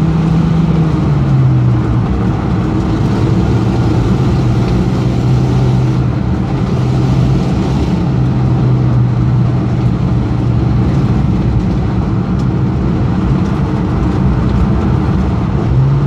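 Car engine heard from inside the cabin while driving on snow, running steadily at moderate revs with tyre and road noise underneath. Its note drops a little about a second in, then holds, and rises again near the end.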